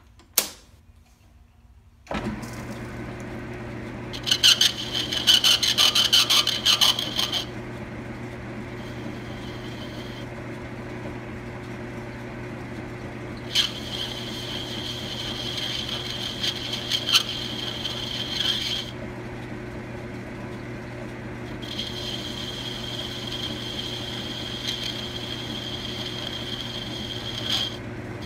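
A sharp click, then a Logan 10-inch metal lathe starts about two seconds in and runs with a steady hum. Its boring bar takes three cuts inside a spinning brass sleeve, each with a high-pitched ring; the first is the loudest and rattles.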